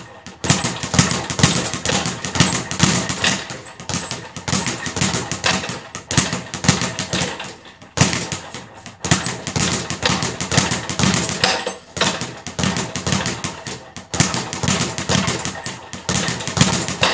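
Speed bag being punched, rattling against its rebound platform in a fast run of sharp knocks, with a few brief breaks. The puncher says he has had the bag only a week and hasn't got the rhythm fully down yet.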